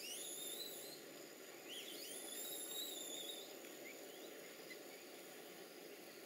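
High-pitched squeals from an infant silvered leaf monkey: two long, rising, wavering calls in the first three seconds, then a few faint short ones.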